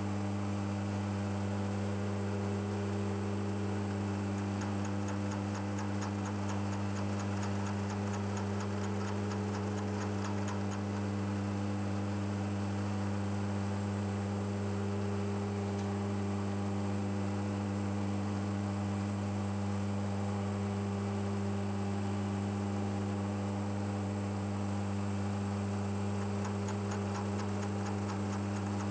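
Milling machine running steadily with a double-angle cutter taking a pass along a brass clamp jaw, giving a steady hum from the motor and spindle. A fast run of faint ticks comes in from about four to eleven seconds in and again near the end.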